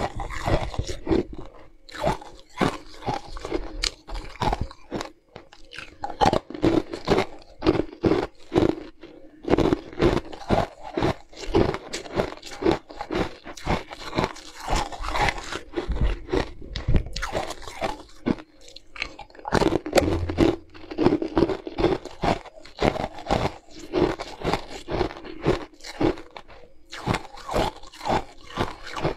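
Pieces of tinted ice bitten and chewed close to the microphone: a long run of sharp crunches and crackles, with a few brief pauses between bites.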